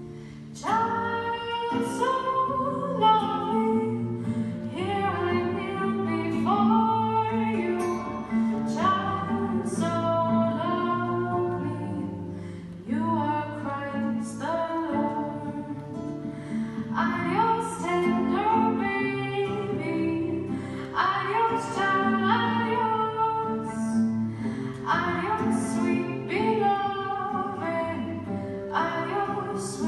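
A woman singing a slow song, accompanied by an acoustic guitar.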